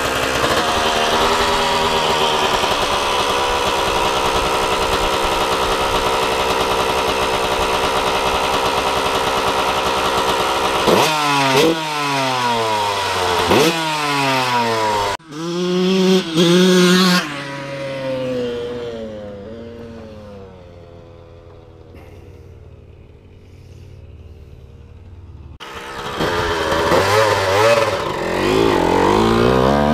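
Honda motocross dirt bike engine running at a steady fast idle, then revved several times in rising and falling sweeps. It is ridden off, its note falling and fading away, and it comes back loud and revving near the end.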